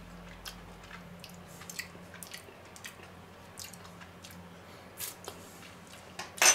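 A person tasting chocolate mixture from a spoon: soft lip smacks and small wet mouth clicks. A single sharp knock near the end.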